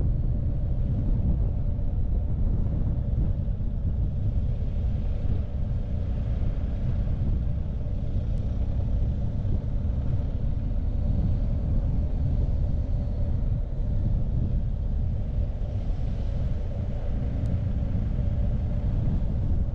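BMW R1250GS boxer-twin engine running steadily while riding, with a low rumble and wind noise over the microphone.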